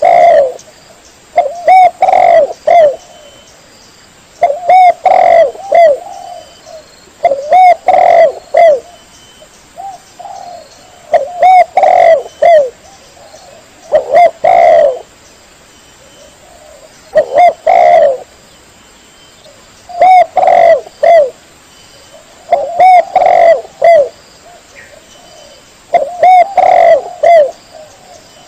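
Spotted dove (tekukur) cooing: a phrase of three or four coos repeated about every three seconds.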